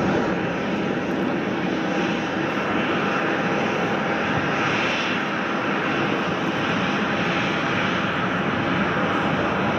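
Boeing 747-400 freighter's four jet engines running at taxi power: a steady, even jet noise with a faint high whine.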